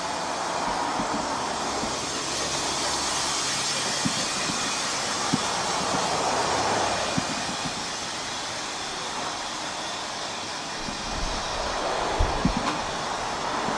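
Narrow-gauge side tank steam locomotive No. 823 moving slowly, with a steady hiss of steam blowing from low down at its cylinders and a few sharp metallic knocks. A low rumble comes in near the end.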